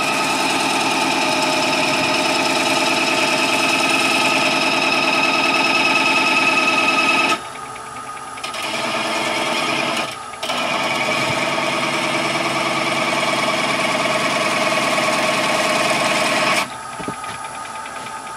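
Texturing tool cutting a spinning walnut acorn-box cap on a wood lathe, giving a steady pitched buzz with many overtones as it puts a ripple texture into the wood. The buzz runs for about seven seconds, breaks off for about a second, comes back briefly, then runs again for about six seconds and stops shortly before the end.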